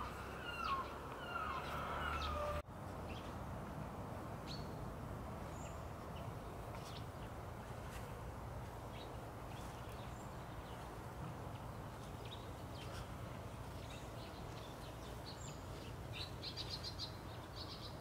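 Birds chirping over a steady outdoor background hiss, with a quick run of rapid chirps near the end.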